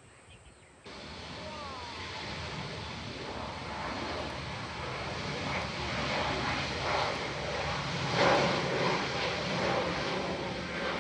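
Jet engine noise of an Airbus A320neo (A320-271N) with Pratt & Whitney PW1100G geared turbofans moving along the runway. It starts abruptly about a second in and slowly grows louder, peaking near eight seconds in.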